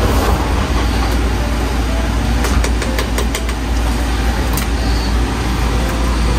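Steady low rumble of a commercial gas range burner heating a boiling pot, with a few light clicks of a metal ladle knocking against the aluminium pot around the middle.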